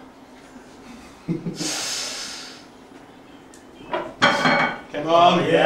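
A lifter's long, forceful breath, about a second long, as he braces over a loaded axle bar for a heavy deadlift. Then, near the end, loud voiced straining and shouting as the pull begins.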